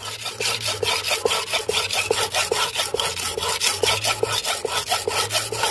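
Steel knife blade scraped back and forth on a wet sharpening stone in quick, regular strokes, about five a second. The edge is being ground until a burr rolls up along it, the sign that it is sharp.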